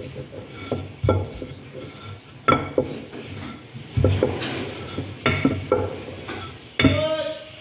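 Wooden rolling pin rolling and knocking on a stone countertop while dumpling wrappers are rolled out: irregular clacks several times a second over a low rolling rumble, with a louder clatter near the end.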